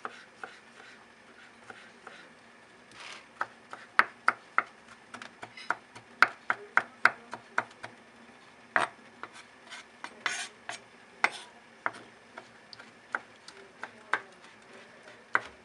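Kitchen knife chopping soft tomato on a wooden cutting board: irregular sharp taps of the blade on the wood, in quick runs of about three or four a second, with a couple of short scrapes as the blade is drawn across the board to gather the pieces.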